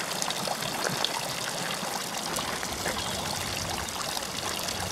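Water trickling and splashing steadily from a tiered stone fountain into its basin.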